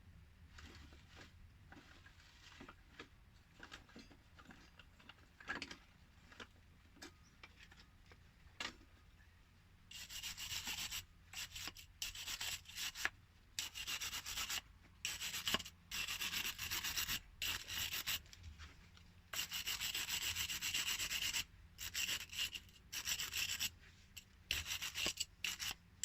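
Hand scraping and rubbing on a plumbing fitting to clean it: faint scratches at first, then from about ten seconds in, loud rapid scraping strokes in bursts, some a second or two long.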